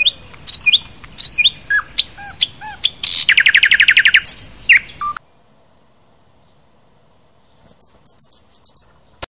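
Small songbird chirping, a run of short whistled calls with a fast rattling trill about three seconds in. After that come only faint high chirps near the end.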